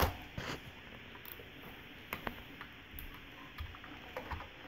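Scattered light clicks and knocks of plastic Hess toy trucks being handled and set down, about a handful of sharp taps spread unevenly over a few seconds.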